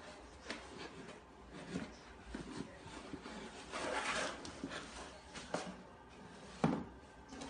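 Faint scraping and rustling of a paper tube being dragged across a hard floor by a cat. Scattered light taps run through it, with a louder rustle about four seconds in and one sharper knock near the end.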